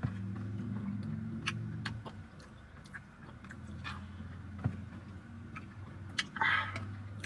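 Eating a frozen latte with a plastic spoon: scattered small clicks and scrapes of the spoon against the plastic cup, with chewing and mouth sounds over a low hum. A short, louder rustling scrape comes near the end.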